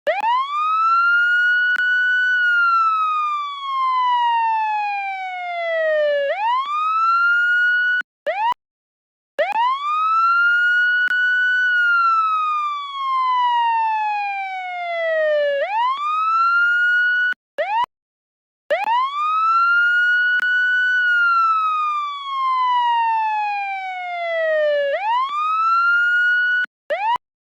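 Police siren wailing. Its tone sweeps quickly up, holds briefly, then slides slowly down before sweeping up again. The cycle repeats, broken by a short silence about every nine seconds.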